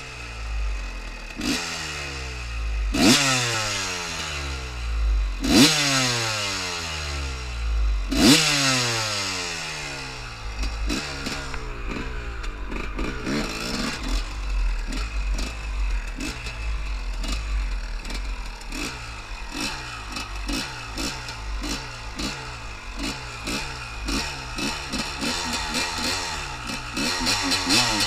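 Dirt bike engine revved hard about five times in the first ten seconds, each rev falling away slowly. After that it is worked on and off the throttle, its pitch rising and dropping about once a second.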